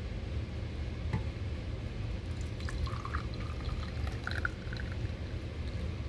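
Water poured from a saucepan into the stainless-steel water reservoir of a Kflow portable electric coffee maker, a steady pour.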